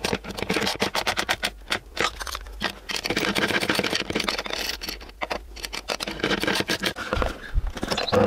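Open-ended wrench clicking and scraping on the nuts of the bolts that clamp a plywood table to a drill press's metal table, in quick, irregular strokes as the nuts are tightened.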